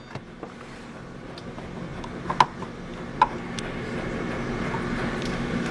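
Electric pressure cooker being set to pressure cook: a few short beeps and light clicks over a steady low hum that slowly grows louder.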